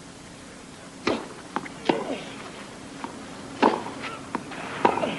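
Tennis rally on a clay court: sharp pocks of rackets striking the ball, four loud hits about a second or more apart, with softer bounce sounds between them, over a low steady broadcast hum.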